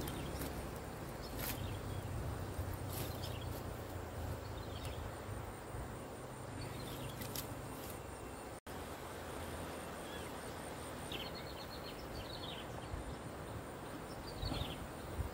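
Outdoor riverside ambience: a steady low rumble with a few sharp clicks in the first half. Small birds chirp in short runs of falling notes several times in the second half, and the sound breaks off briefly just past halfway.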